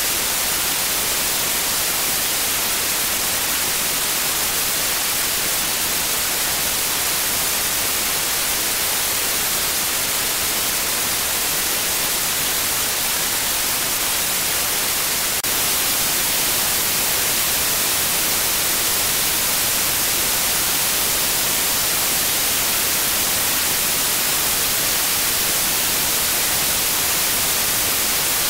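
Steady, loud static hiss, like white noise, strongest in the high end, with a faint click about halfway through where the level steps up slightly.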